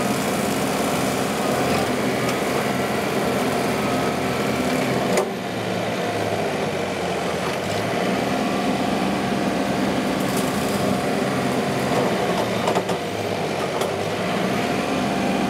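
John Deere 2038R compact tractor's three-cylinder diesel running steadily under load, with the loader-mounted Hardee hydraulic rotary mower spinning and chewing into a small tree's limbs and trunk. One sharp knock about five seconds in, as the blade strikes wood.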